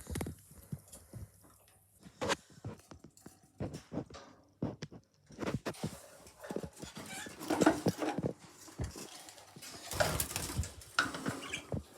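Baby budgerigars moving about: scattered clicks, taps and scratching, with louder clusters of sound about seven and ten seconds in.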